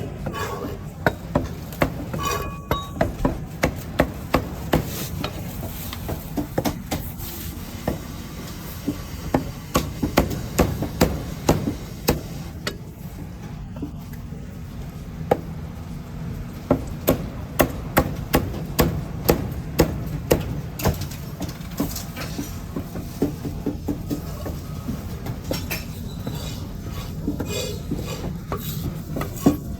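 Cleaver chopping roast meat on a wooden chopping block: runs of sharp chops, several a second, broken by short pauses.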